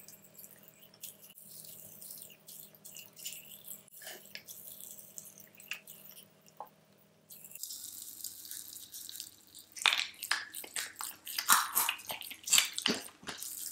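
Popping candy (Magic Pops) crackling and snapping inside an open mouth, with wet mouth sounds. Scattered small pops at first, then a dense run of loud snaps near the end.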